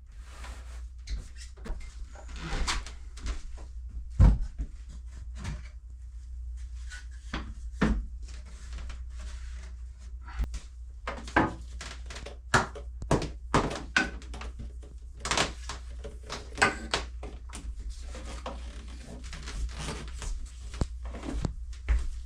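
Irregular knocks and clacks of wooden pieces being handled and set down on a workbench, over a steady low hum.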